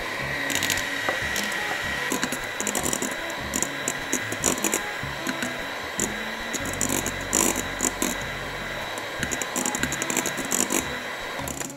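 Electric hand mixer running with a steady motor whine, its beaters whipping egg whites and sugar into meringue in a stainless steel bowl, with irregular clicks and rattles as the beaters knock against the bowl.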